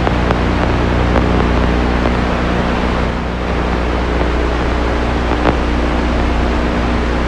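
Steady rumbling, rushing noise with a low hum underneath, like a dark ambient drone, broken only by a few faint clicks, one a little louder about five and a half seconds in.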